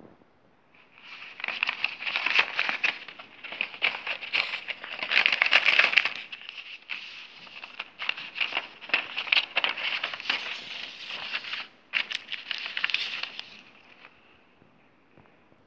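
A paper mailing envelope being opened by hand and its contents pulled out: crinkling and rustling of paper, cardboard and a plastic sleeve. It starts about a second in, breaks off briefly about twelve seconds in, and dies away near the end.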